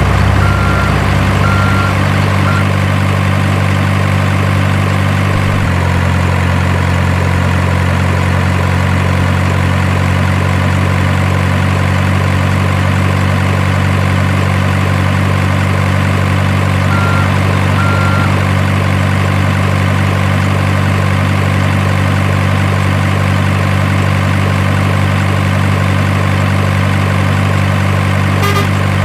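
Simulated diesel truck engine idling steadily from an RC model truck's sound unit. The engine note shifts slightly about six seconds in, and there are a few short high beeps near the start and twice about two-thirds of the way through.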